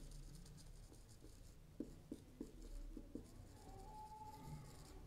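Faint sound of a marker writing on a whiteboard: a run of short, light strokes and taps in the middle, then a brief thin squeak of the felt tip.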